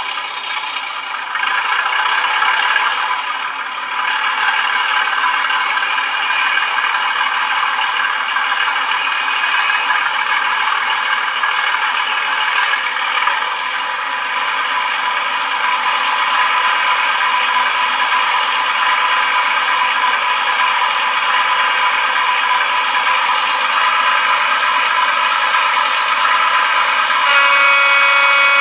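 Class 37 diesel engine sound, the English Electric V12 running with a clattering rattle, played by a LokSound v5 sound decoder through the small speaker of a OO gauge model locomotive. It grows louder about a second in and again a few seconds later, and a steady pitched tone joins near the end.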